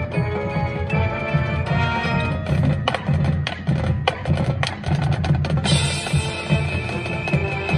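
High school marching band playing: a held wind chord at first, then a passage of sharp percussion hits, and near the end a loud cymbal crash that rings on under the full band.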